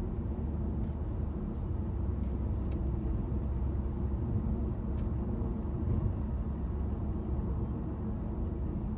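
Steady low rumble of a running engine, as heard riding in a vehicle.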